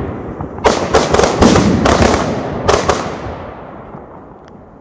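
Firecrackers going off: about seven loud, sharp bangs in quick succession from just under a second in to about three seconds in, with the sound slowly dying away after them.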